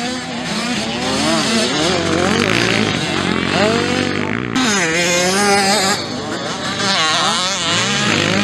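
Motocross dirt bike engines revving hard, their pitch climbing and dropping repeatedly as the bikes take jumps and land. The sound changes abruptly about halfway through and again about six seconds in.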